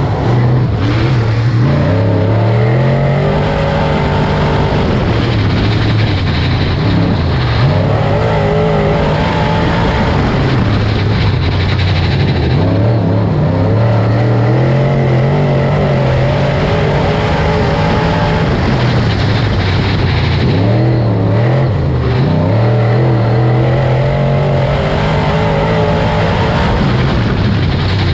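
A dirt-track race car's engine at racing speed, its pitch climbing as it accelerates and dropping as the throttle comes off, over and over, about every eight seconds.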